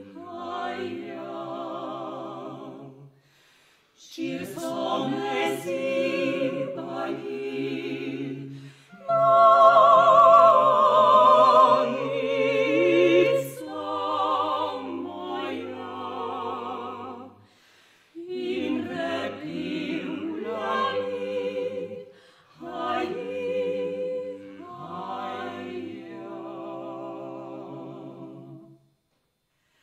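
A vocal quartet of one male and three female classically trained voices singing unaccompanied with vibrato, in phrases broken by short breath pauses. It swells to its loudest about nine seconds in, and the singing stops about a second before the end.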